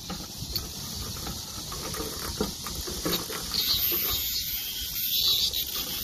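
Cicadas buzzing in a steady, high, hissing chorus that swells louder about three and a half seconds in, over a low rumble with a few soft knocks.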